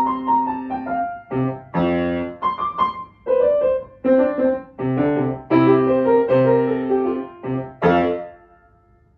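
Grand piano being played: chords in short phrases with brief breaks between them. It closes with a loud chord about eight seconds in that rings out and fades away.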